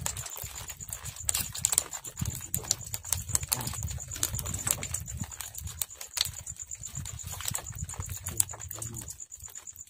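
Fishing net being hauled by hand over a boat's bamboo gunwale: irregular knocks and clicks of the net against the wood, over a low rumble and a steady high thin whine.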